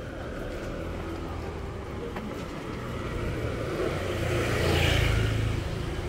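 A motor vehicle driving past, its engine rumble and tyre noise swelling to a peak about five seconds in and then easing off.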